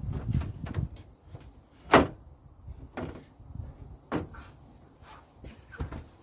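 Handling knocks and clunks as a plastic grille and headlight bezel are set against the truck's front header panel. There are about four sharp knocks, the loudest about two seconds in, with softer rustling and scraping between them.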